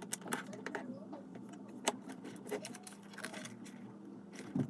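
Plastic Lego pieces clicking and rattling as they are handled and pressed together: a string of small, sharp, irregular clicks, with a heavier knock near the end.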